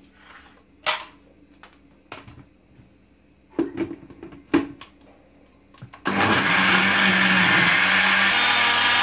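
A few knocks and clicks as the blender jug and its lid are handled and fitted, then about six seconds in a Braun jug blender switches on and runs steadily, blending a liquid cream of milk, cheese and yogurt.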